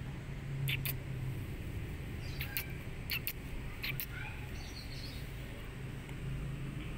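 Birds chirping in scattered short, high notes, over a steady low hum.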